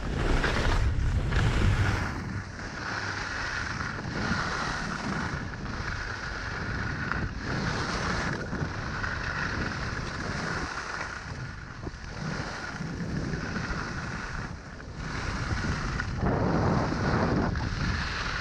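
Skis sliding and scraping over groomed snow on a descent, mixed with wind buffeting the microphone. The rushing comes in swells, louder in the first two seconds and again near the end.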